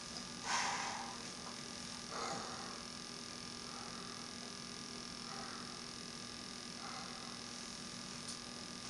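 Soft breaths into a plastic oxygen face mask, five of them about a second and a half apart, the first the loudest, over a steady electrical mains hum.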